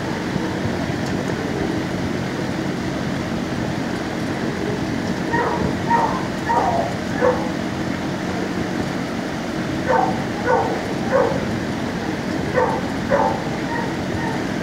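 Dogs in neighbouring shelter kennels barking in short clusters of three to five barks, starting about five seconds in, over a steady low hum.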